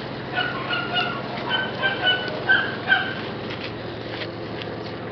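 White Shiba Inu puppy whimpering: about a dozen short, high-pitched whines in quick succession over the first three seconds, then a few faint clicks.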